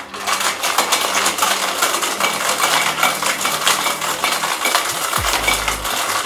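Ice cubes rattling hard inside a metal cocktail shaker during a fast, vigorous hard shake: a dense, continuous clatter.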